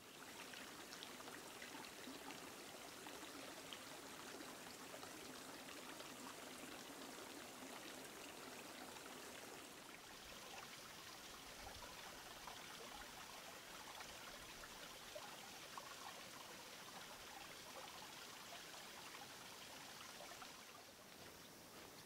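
Faint trickling and running water, a small stream of water flowing.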